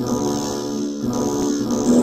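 Intro music: a steady instrumental track of sustained pitched notes, with no voice.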